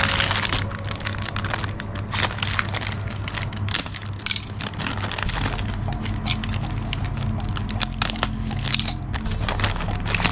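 Plastic packaging crinkling and crackling in many small irregular crackles as it is handled and pulled off a replacement car side-mirror glass.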